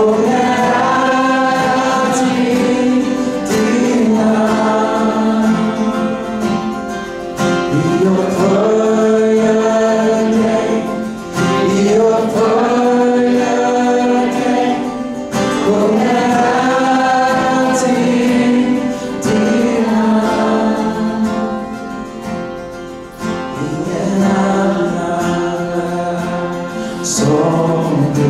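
Worship song: two men singing into microphones, accompanied by two strummed acoustic guitars, in phrases with short breaks between lines.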